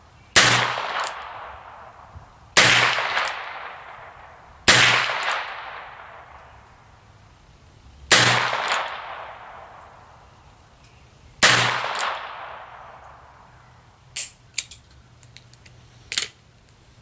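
Five shots from a Smith & Wesson Model 17-3 .22 LR revolver, spaced about two to three seconds apart. Each shot has a fading echo and a smaller crack about half a second after it. Near the end there are a few light metallic clicks.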